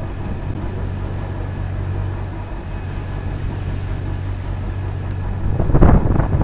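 Small motor boat's engine running steadily under way, a low even drone. A brief louder burst of noise rises and falls just before the end.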